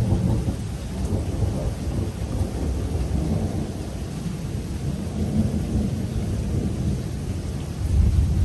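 Rolling thunder rumbling low and long over steady rain, swelling again near the end.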